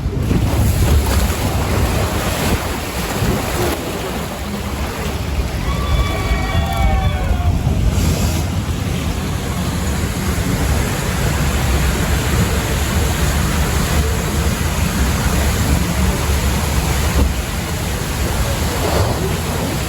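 Wind buffeting the microphone and rushing, splashing water as a log flume boat rides through the course, a steady loud rumble. A brief pitched voice-like sound comes through about six seconds in.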